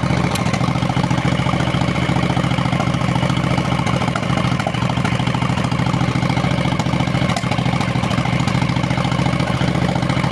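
Motorcycle engine idling steadily, with an occasional sneeze-like misfire heard from both the engine and the exhaust. It is an intermittent misfire that stalls the engine if the idle is lowered. The owner wonders whether the electronic ignition is to blame.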